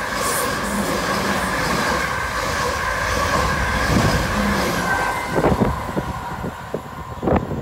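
A long South Western Railway passenger train running through a station: steady rumble and wheel noise with a high steady whine, easing off after about five seconds. Then come a few sharp clacks, the loudest near the end.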